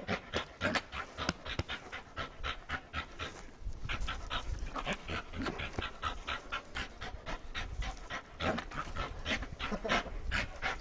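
Pit bull panting hard and fast, an even run of quick breaths about four to five a second.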